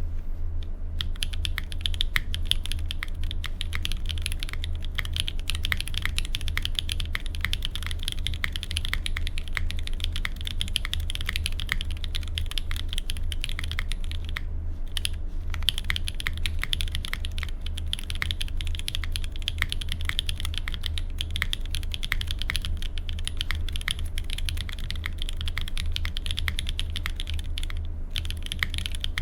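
Continuous fast typing on a Monstargear Sangeo65 custom mechanical keyboard with stock pre-lubed Gateron Raw switches, an aluminium plate, no foam and GMK keycaps, the keystrokes clacking in a dense stream that starts about a second in and pauses briefly about halfway. A steady low hum runs underneath.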